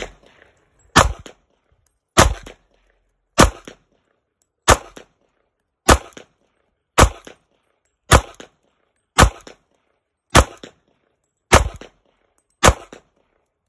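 Sig Sauer P250 Compact pistol in .40 S&W firing eleven shots at a steady, slow pace, about one every second and a bit, each a sharp crack with a short echo.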